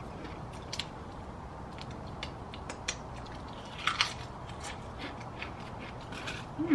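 Pringles potato crisps being bitten and chewed: scattered sharp crunches, the loudest about four seconds in. A brief falling voice sound comes at the very end.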